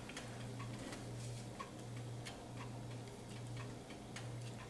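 Faint light ticks and pops, a few a second and slightly uneven, from a saucepan of boiling sugar and corn syrup as peanut butter is scraped into it with a rubber spatula, over a low steady hum.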